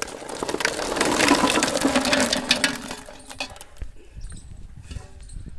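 Water pouring from a tilted aluminium pot into another aluminium pot, with boiled eggs knocking and clinking against the metal. The pouring stops about three and a half seconds in, leaving a few light knocks.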